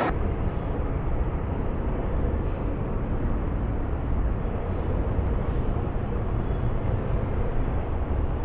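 Bowling alley background noise played back slowed down, heard as a low, steady rumble with no distinct knocks or pin crashes.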